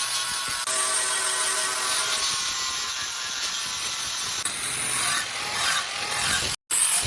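Power tool working steel: a steady grinding, cutting noise with a faint high whine, changing abruptly a few times.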